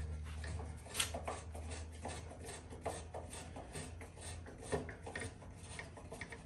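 Scattered light clicks and small knocks of a bench clamp's screw and T-handle being turned to clamp an old Honda CT70 engine case. A low hum fades out in the first second.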